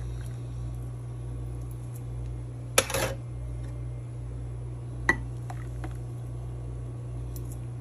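Glass espresso shot glasses clinking as they are handled: one clink with a short rattle about three seconds in and a single sharp tick about five seconds in. A steady low hum runs underneath.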